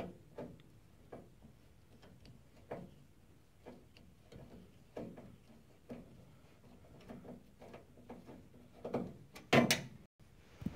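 Hand screwdriver turning a tiny screw out of the sheet-metal back panel of an electric fireplace: scattered small clicks and scrapes of the tip in the screw head, with a louder clatter of knocks near the end.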